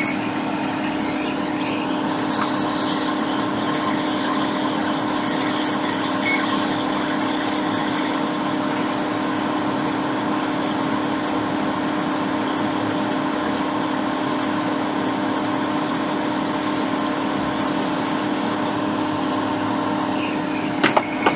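Soldering fume extractor fan running with a steady hum, with a couple of small clicks near the end.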